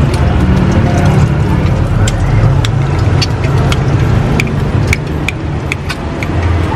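A steady low motor-vehicle engine rumble, with a series of sharp clicks and brief rings from a steel knife striking a ceramic plate while cutting tofu, from about two seconds in.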